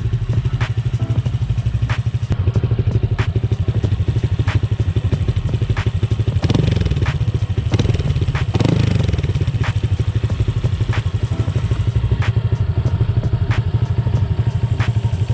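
Honda Click 125i scooter's single-cylinder engine idling through an aftermarket Akrapovic carbon exhaust with its silencer insert fitted. It is revved up briefly twice, about six and eight and a half seconds in, for a sound check.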